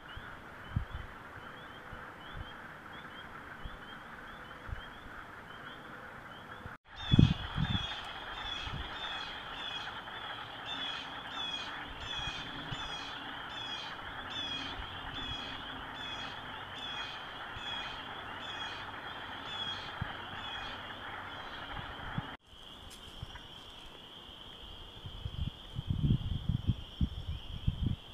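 Spring peeper and wood frog chorus. A dense, steady high peeping runs throughout, and in the middle part nearby peepers give a rapid series of sharp, upward-slurred peeps over the lower clucking of wood frogs. The chorus breaks off for an instant twice, and low rumbling bumps hit the microphone about seven seconds in and again near the end.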